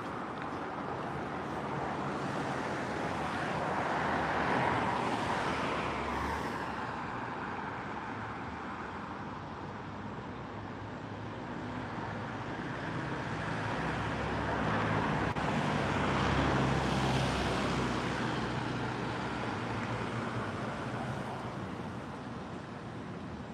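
Road traffic: two vehicles pass, each one's tyre and engine noise swelling and fading, the second with a low engine hum.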